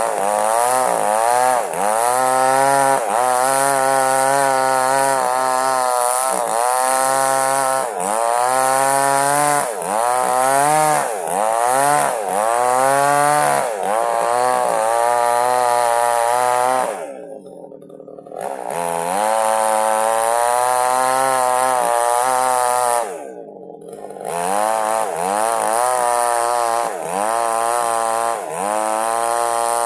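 Small two-stroke chainsaw cutting lengthwise through a log. Its engine pitch sags and climbs again every second or two as the chain bites. The engine drops back to idle twice for a moment partway through.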